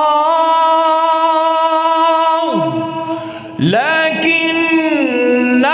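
A man chanting Quran recitation in melodic tajweed style, drawing out a long held, ornamented note. About halfway through, the voice sweeps down in pitch, dips briefly in loudness, then rises back into a sustained line.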